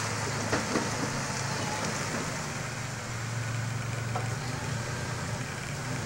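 Pickup truck engine running as the truck drives slowly around a street circle, a steady low hum that eases off and builds again midway, with two light knocks about half a second in.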